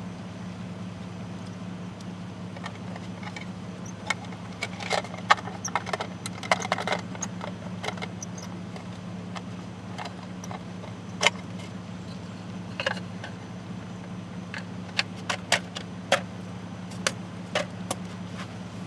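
A steady low hum with many light clinks and rattles scattered over it, busiest a few seconds in and again near the end.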